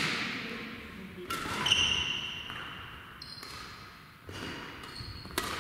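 Badminton rally: rackets hitting the shuttlecock in sharp pops, about five times, with shoes squeaking on the court floor in between.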